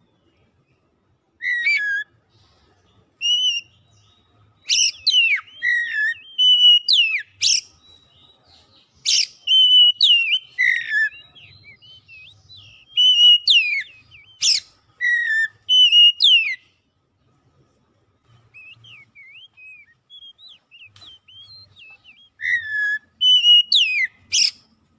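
Male oriental magpie-robin singing a varied song of loud whistled phrases: sharp upward-sweeping notes mixed with lower slurred whistles. For a few seconds past the middle it gives only soft notes, then sings loudly again near the end.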